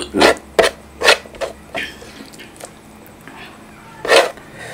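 Close-miked eating sounds: a hand mashing rice and saucy chicken with wet, squishy rubbing, and mouth sounds of eating. They come as a string of short bursts, with a louder one about four seconds in.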